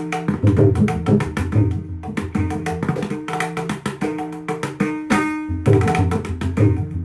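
Mridangam played solo with the hands: a fast, dense run of strokes, ringing pitched tones from the right head mixed with deep bass strokes from the left head.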